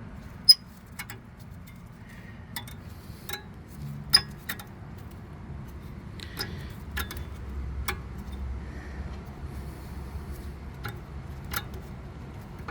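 Scattered metallic clicks and clinks of a Kia Cadenza's brake pads and their metal clips being worked out of the caliper bracket. There are two sharper clinks, about half a second and about four seconds in.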